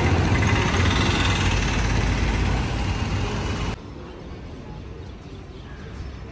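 A motor vehicle engine idling close by, a dense low rumble that cuts off suddenly a little past halfway through, leaving quieter open-air street ambience.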